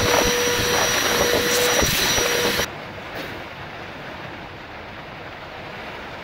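Vacuum cleaner sucking sanding dust off a wooden desk through a hose wand, running with a steady whine, cut off suddenly about two and a half seconds in. A much quieter steady hiss follows.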